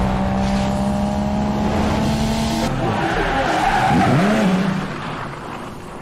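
Intro sound effect of a car: engine noise with tyres skidding and squealing. It starts abruptly, is loudest about four seconds in, then fades out.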